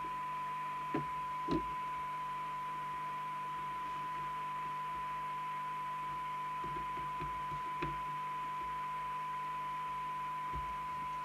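Steady test tone from a signal generator, received and played through a Fidelity 2001 FM CB radio's speaker over a light hiss, while its receive coils are aligned. A few faint clicks from the trimming tool on the coils.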